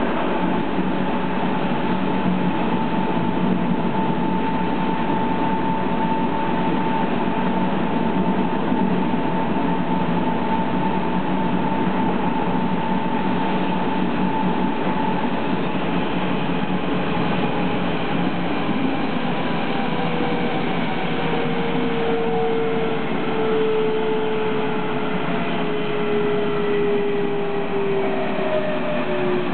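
Berlin S-Bahn class 481/482 electric train heard from inside the passenger car while running: steady rumble and rolling noise with a motor whine. The whine holds steady through the first half, then a lower whine falls steadily in pitch through the second half as the train slows.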